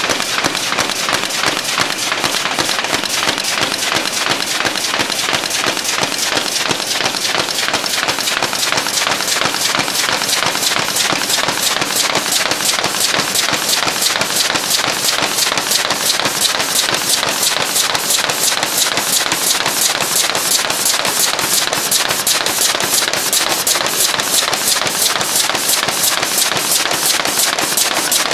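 Folder-gluer carton machine running at production speed: a loud, rapid, even clatter of repeated knocks from the machine as carton blanks are fed and folded.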